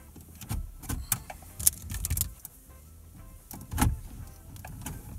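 A car radio head unit being worked loose from its mounting frame in the dashboard by hand: scattered clicks and knocks of plastic and metal, the loudest about four seconds in.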